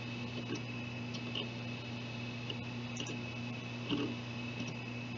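Steady low electrical hum with a thin high tone above it, and a few faint, irregular clicks.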